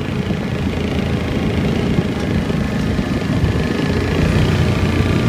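Motorbike engine running steadily at low speed while riding over a rough field track, with a compact tractor's engine running just ahead.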